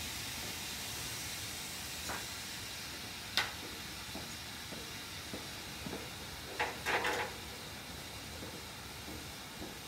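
Hot freshly cast metal ingots on a block of ice, giving a steady hiss as the ice melts and steams under them. Sharp cracks come from the ice about two seconds in, again a second later, and in a louder cluster around seven seconds.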